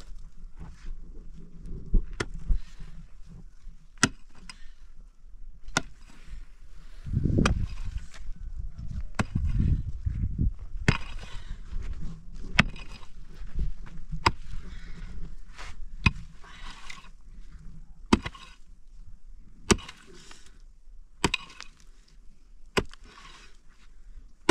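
A hand tool striking again and again at roughly one blow every one and a half to two seconds, like chopping or digging, with scraping and handling sounds between the blows.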